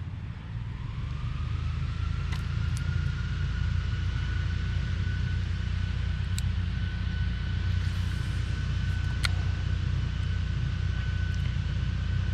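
A motor runs steadily: a low rumble with a thin whine that rises over the first couple of seconds and then holds, and a few faint clicks.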